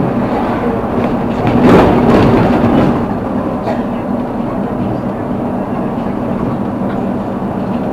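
Steady running noise of a moving vehicle with a low hum, swelling louder for a second or two about two seconds in.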